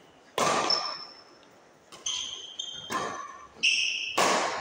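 Badminton rally: a series of sharp racket strikes on the shuttlecock, roughly a second apart, mixed with the short squeaks of sneakers on the court floor.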